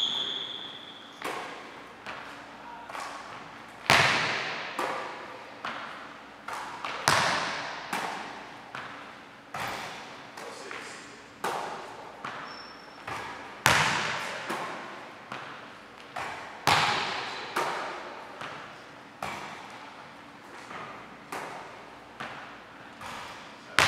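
Basketball impacts on a hardwood gym court and the hoop during a shooting drill, each one ringing in the large hall; the loudest come about every three seconds, with lighter bounces and catches between.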